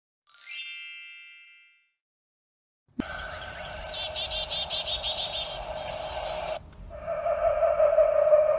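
A single bright chime rings once and fades away. After about a second of silence, a sound effect of birds chirping over a hiss starts abruptly, giving way near the end to a steady, louder held call.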